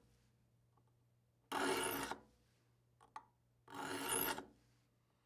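A saw file rasping across the teeth of a handsaw as the saw is sharpened: two separate strokes, each lasting about two-thirds of a second, about two seconds apart.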